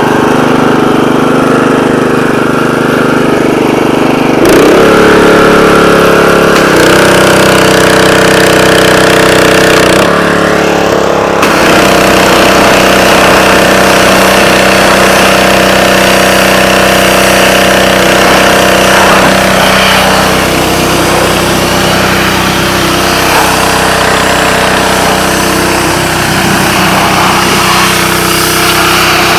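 Honda 5.5 hp single-cylinder gasoline engine running steadily on a pressure washer, its note shifting a few times in the first dozen seconds, with the hiss of the high-pressure water jet blasting a car tyre and wheel.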